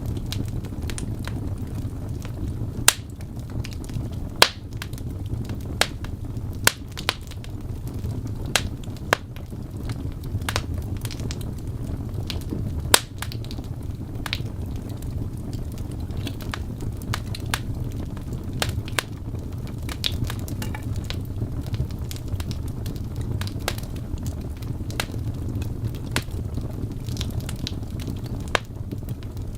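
Wood fire in a fireplace crackling, with sharp pops at irregular intervals over a steady low rumble.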